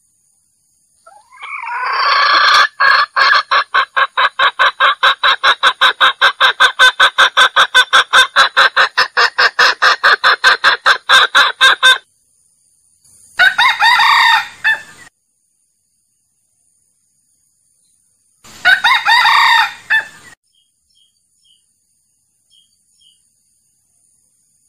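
Junglefowl calling: a long, rapid series of clucks, about five a second, for around ten seconds, then two short crows a few seconds apart. These are calls of the kind used to lure wild roosters into a trap.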